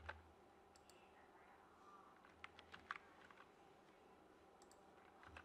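Faint, scattered clicks of a computer keyboard and mouse, about a dozen short taps with near silence between them.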